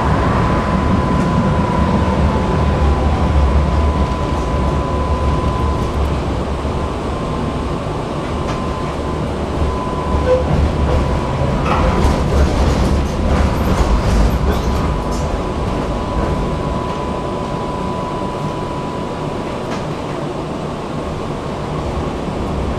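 Tatra T3 tram running along the track, heard from inside the car: a steady low rumble with a thin whine held on one note, and a few sharp clicks of the wheels over rail joints about twelve to fifteen seconds in.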